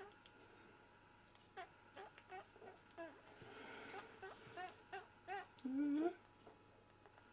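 A young squirrel being syringe-fed gives a run of about ten short high squeaks, then one longer, louder rising squeak near the end.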